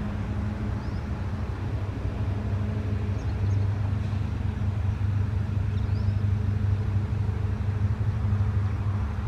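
WDP4 diesel locomotive's EMD two-stroke engine running under load with a steady low drone as the locomotive approaches. It grows a little louder from about three seconds in.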